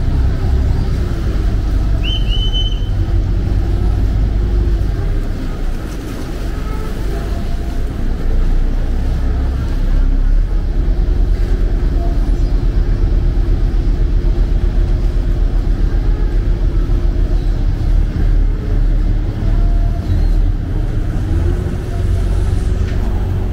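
Chao Phraya express boat's diesel engine running with a low rumble and a steady throb as the boat docks at a pier. A brief high whistle sounds about two seconds in.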